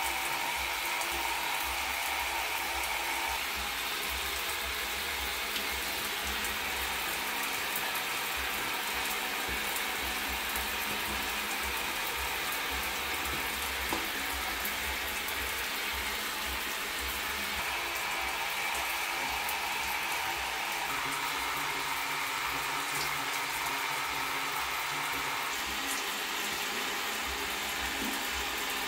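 Shower water running steadily onto a tiled floor, a constant spray hiss.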